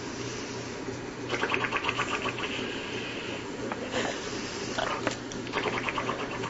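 An elderly woman snoring in bursts of rapid rattling pulses, like an AK-47 firing. The bursts start about a second in, come again near four seconds and run to the end, over a steady low hum.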